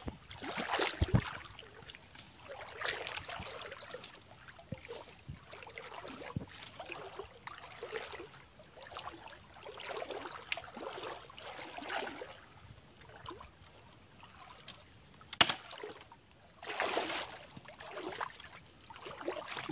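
Shallow stream water splashing in irregular swishes every second or two as a person wades through it, with one sharp knock about fifteen seconds in.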